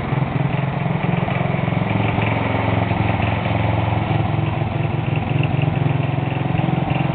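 Riding-mower engine of a homemade chopper trike running steadily with a fast, even putter as the trike is ridden slowly along.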